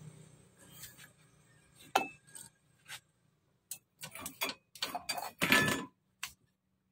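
Kitchen knife cutting on a wooden chopping block: a sharp knock about two seconds in, then a quick run of short knocks and clicks, loudest near the end.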